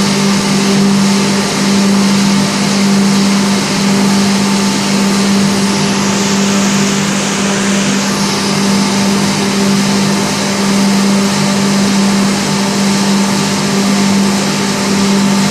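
Automatic wet blasting machine running: a loud, steady motor hum under an even hiss of the water-and-abrasive blast.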